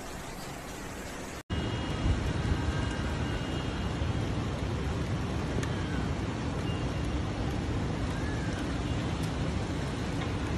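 Heavy rain and wind making a steady rushing noise. About a second and a half in it cuts to a louder, deeper rush of wind-driven rain.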